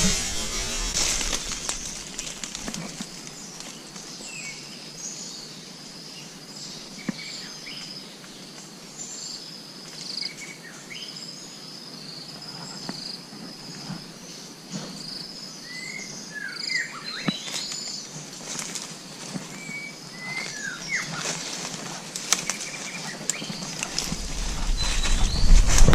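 Forest ambience at night: scattered short, high chirping calls and whistles, some sliding down in pitch, over thin steady high tones, with clicks and rustles throughout. A low rumble and louder rustling come in near the end.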